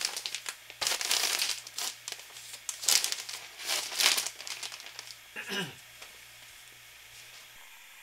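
Kraft-paper-faced R13 fiberglass insulation batts rustling and crinkling as they are handled and stood against a minifridge door. The sound comes in a run of uneven bursts that stops about two thirds of the way in.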